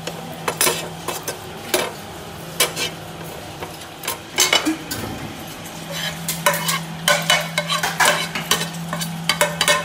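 Perforated steel spatula stirring and scraping grated dry coconut as it dry-roasts in a nonstick frying pan, with many short scrapes and taps on the pan. Near the end the pan is tipped and the coconut scraped out onto a steel plate.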